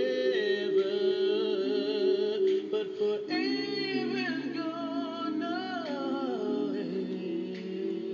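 Music with a sung melody of long held, wavering notes over sustained lower chords.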